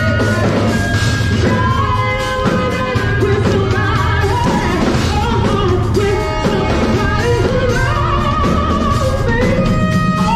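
Live band music: a singer singing through a microphone over a drum kit and accompanying instruments, with a steady beat.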